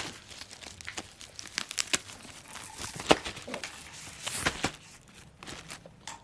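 Packaging being handled: irregular crinkling and tearing with scattered sharp clicks, loudest about three seconds in and again about a second later.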